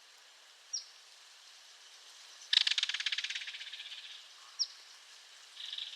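Belted kingfisher giving its rattle call: a loud, fast series of dry notes about halfway through that fades away over a second and a half, with a second rattle starting near the end. Two short, high, falling chirps sound, one early and one late.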